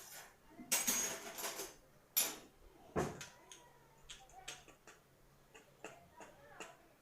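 Spoon and kitchen containers clinking and scraping while baking powder is spooned into cake batter: a few rustling scrapes, one sharp knock about three seconds in, then light clicks and taps.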